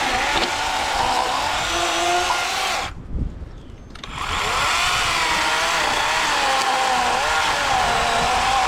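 Worx WG384.9 cordless electric chainsaw cutting an undercut into a pine limb, its motor whine wavering in pitch as the chain bites. It stops for about a second near three seconds in, then starts cutting again.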